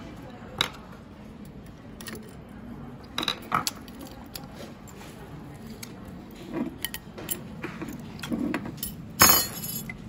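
Scattered small metal clicks and clinks as a smart lock's metal mounting plate and parts are handled and taken apart, with a louder clatter about nine seconds in.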